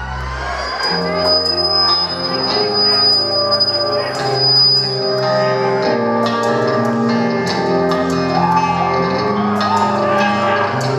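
Rock band playing live in a large hall, heard from within the crowd: a melody of held notes stepping up and down over a steady ticking beat.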